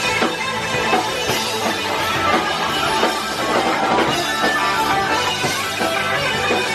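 Live rock band playing: electric guitars and drum kit, loud and continuous.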